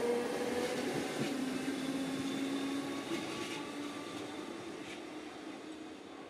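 Merseyrail electric multiple unit pulling away, its traction motors giving a humming whine that steps up in pitch twice as the train gathers speed, fading steadily as it draws away.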